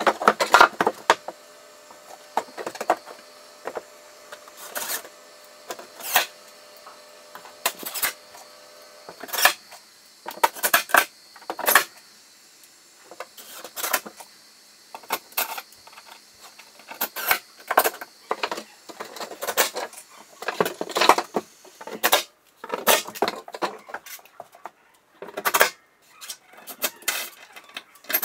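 Irregular knocks, taps and clatter from building boards and hand tools being handled and fitted against wall framing, a sharp hit every second or two.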